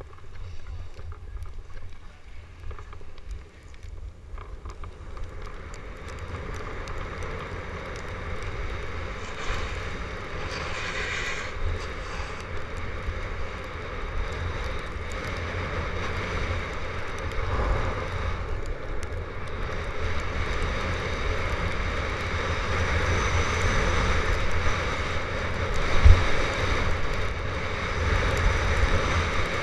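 Wind buffeting the microphone and skis scraping over packed snow during a downhill run, growing louder as speed builds, with one low thump near the end.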